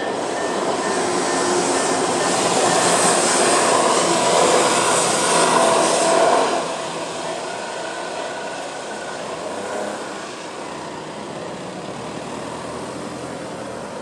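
Electric train passing over the level crossing, a rushing noise that builds to its loudest about six seconds in and then falls away as the train clears. The crossing's repeating electronic alarm tones are heard only faintly in the first second or two.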